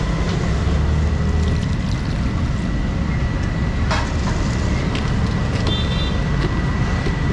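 Steady low rumble of street traffic, with a single sharp click about four seconds in.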